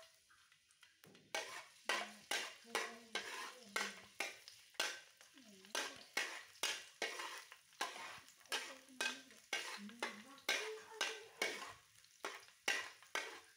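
Metal spatula scraping and stirring in a steel wok, in quick repeated strokes of about two or three a second starting about a second in, with food sizzling in the pan.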